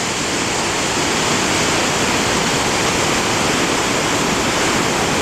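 Loud, steady rush of whitewater, a dense even roar of falling or tumbling river water that swells slightly in the first second and then holds steady.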